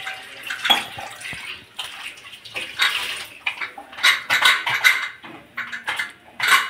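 Irregular splashing of water with pots and utensils clinking against each other: washing up in the kitchen.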